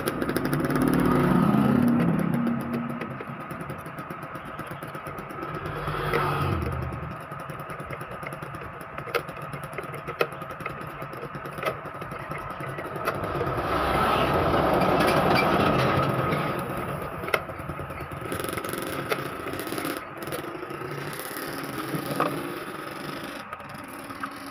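Screwdriver and hands working on an opened inkjet printer as a screw goes back in: scattered light clicks and scrapes of plastic and metal parts. Engine noise from passing traffic swells up and fades twice, once at the start and again mid-way, louder than the clicks.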